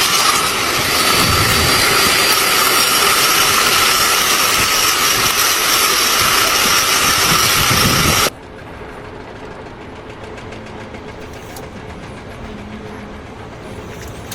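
Loud, steady machine noise, an engine running with a strong hiss. It cuts off suddenly about eight seconds in, leaving quieter background noise.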